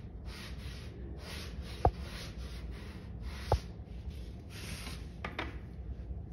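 Paintbrush strokes rubbing across watercolor paper: a run of short, scratchy swishes. Two sharp taps stand out, about two seconds in and again a second and a half later, over a steady low hum.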